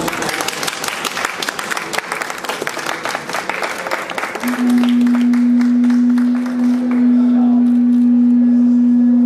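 Audience applause, then about four and a half seconds in an animal horn is blown in one long, steady, loud low note that drowns the clapping.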